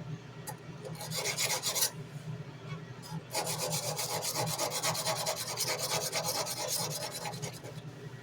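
Sandpaper on a hard backer scraped back and forth over a steel tanto knife blade in quick hand strokes: a short run about a second in, then a longer steady run from about three seconds in that eases off near the end.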